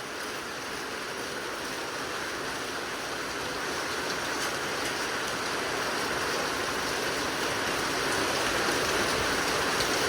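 Heavy rain and wind from a squall line: a steady rushing that grows gradually louder.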